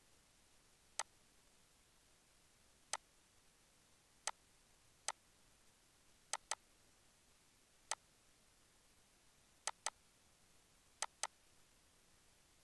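Computer mouse button clicking over near silence: eleven sharp single clicks spread out, three of them quick double-clicks.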